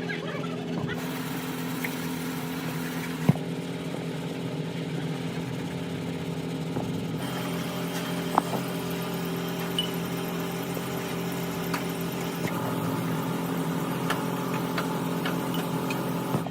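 An engine running steadily at an even, unchanging speed, with a few sharp metallic clicks or taps over it, the loudest about three seconds in.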